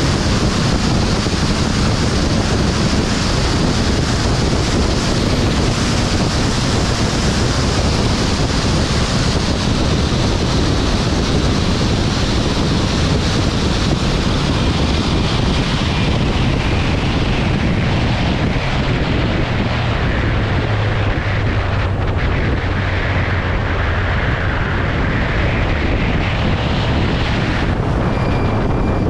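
Wind rushing over the microphone on a Kawasaki Z900RS ridden at speed on track, with the bike's 948 cc inline-four engine running steadily underneath. In the second half the wind hiss eases for a while and the engine's low note stands out more.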